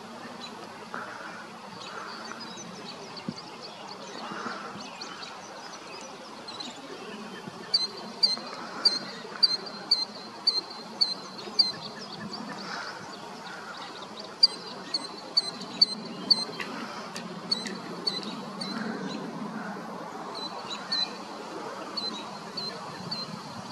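Killdeer calling: runs of short, sharp, high-pitched notes at about two a second, starting several seconds in and coming back in bursts through the rest, over a faint steady background hiss.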